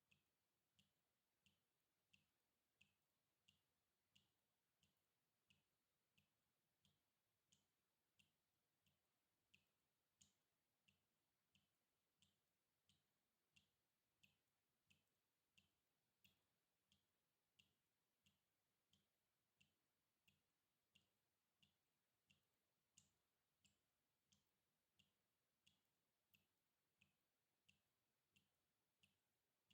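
Water dripping in a steady, even rhythm, about three drops every two seconds, each drop a short plink with a soft low thud beneath it. Very faint.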